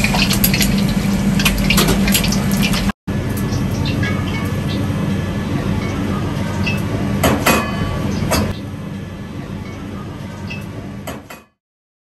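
Eggs frying in hot oil in a wok, sizzling and crackling steadily over a low hum, with a few sharper clicks. The sound drops out briefly about three seconds in and stops shortly before the end.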